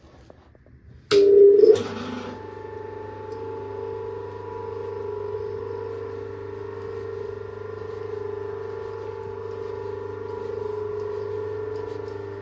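Mahlkönig EK43 coffee grinder motor switched on about a second in, starting with a loud burst and then running empty with a steady hum. It runs with the dial set at zero while the burrs are calibrated to their touching point.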